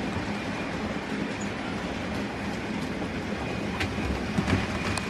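Model train running along the layout track: a steady whirring rumble of motor and wheels, with a few sharp clicks over the rail joints about four seconds in.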